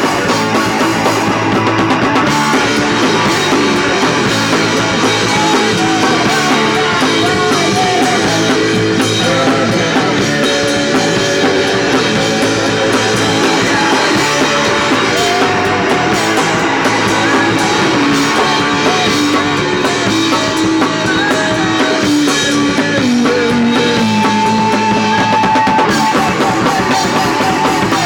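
Punk rock band playing live: guitar and drum kit, loud and continuous.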